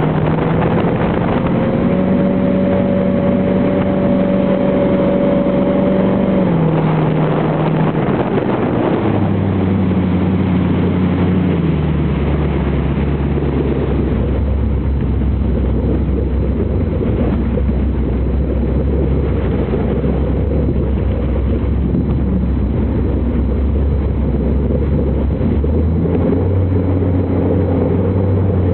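Jet boat engine running steadily. Its pitch drops in two steps over the first dozen seconds, holds low for a long stretch, then rises a little near the end.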